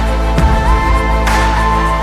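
Background music with a steady electronic beat, a deep bass line and sustained synth tones.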